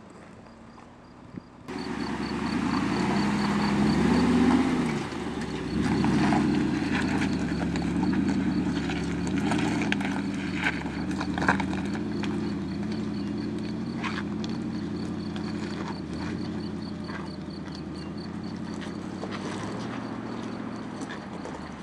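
Mercedes-Benz G-Class engine working at low speed as it crawls up a rocky slope, its pitch rising and falling, with stones crunching and clicking under the tyres.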